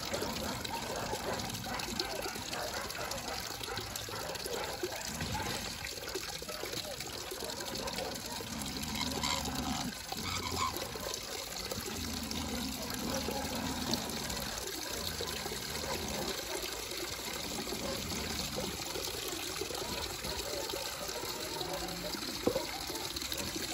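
Water running steadily from an outdoor tap into a plastic basin.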